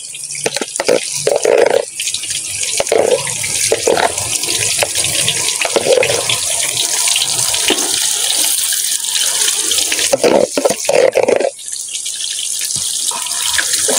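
Banana fritters deep-frying in a pan of hot oil: a steady, dense sizzling hiss full of fine crackles, with a few louder stretches where the frying flares.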